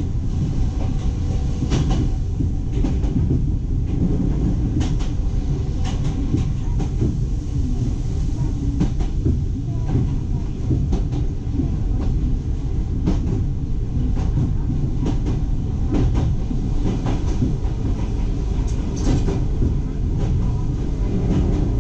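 Iga Railway electric train running along the track: a steady low rumble with irregular clacks of the wheels over rail joints and a faint steady hum.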